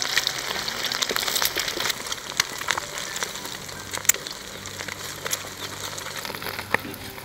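Egg frying in hot oil in a wok: a steady sizzling hiss with scattered crackles and pops, somewhat quieter after about two seconds, with a couple of sharper pops later on.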